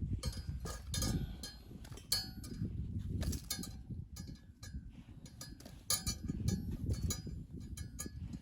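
Metal cookware being handled: repeated light clinks and taps that ring briefly, over a steady low rumble.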